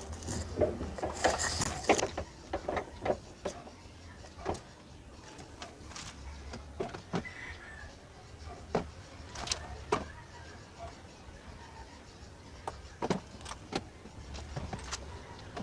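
Hands unplugging sensor connectors and pulling hoses in a car engine bay: a rustle at first, then scattered sharp plastic clicks and light knocks, over a steady low hum.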